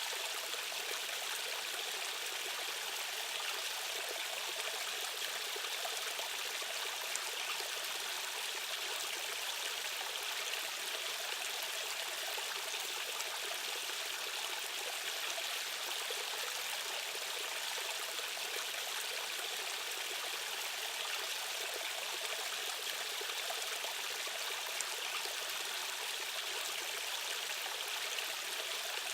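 Rushing stream or small waterfall: a steady, even wash of flowing water with no breaks.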